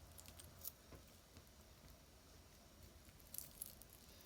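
Near silence with a few faint clicks and taps, about half a second in and again past three seconds, from a pearl necklace and its clasp being handled.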